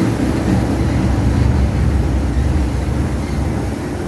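Hitech-SH10T industrial scrap-fabric shredding line running under load: a steady, heavy low rumble of the machinery chewing through the waste.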